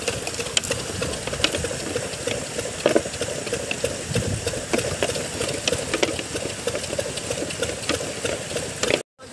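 A small motor runs steadily with a rapid clatter, mixed with water sloshing and many small clicks as live shrimp are shaken out of a harvest net into a crate of water. The sound cuts out briefly near the end.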